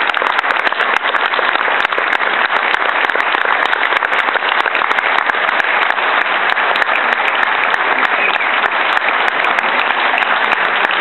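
Audience applauding steadily after a tango performance: dense, continuous clapping.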